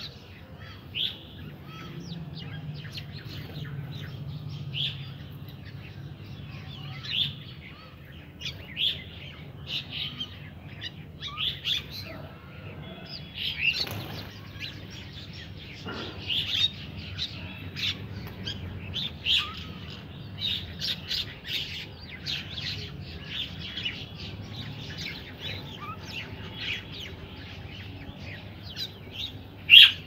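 Birds chirping in many short, repeated calls over a low steady hum, with wing flaps from birds flying in to feed. A loud flap comes near the end as a bird lands.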